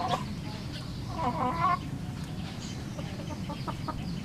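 A Jersey Giant rooster gives one short clucking call about a second in, over a steady low rumble.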